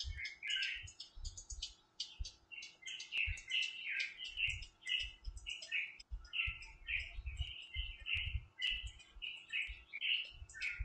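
Drum loop from a Processing step sequencer playing through the computer speakers, driven by Wekinator's gesture outputs: short, high, chirpy hits at a fairly even pace of about two to three a second over low thumps.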